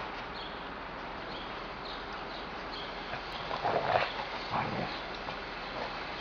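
Barbet dogs play-wrestling, with a few short dog vocalizations about four seconds in over a steady background hiss.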